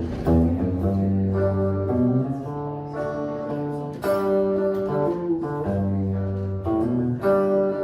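Instrumental music: a guitar-like plucked string instrument playing a steady run of chords over a low bass line, with no singing.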